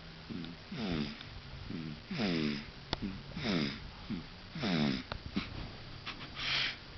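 A sleeping baby snoring: a string of short, wheezy snores about once a second, each falling in pitch, then a breathy, untoned breath near the end.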